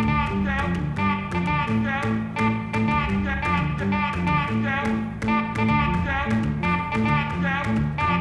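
Background music: a guitar-led song with a steady beat and a repeating bass line.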